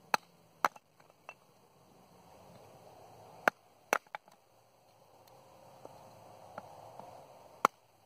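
A wooden baton striking the back of a small hatchet multi-tool's blade, driving it into a block of firewood to split kindling. Sharp knocks: two near the start, two about three and a half seconds in, and one near the end.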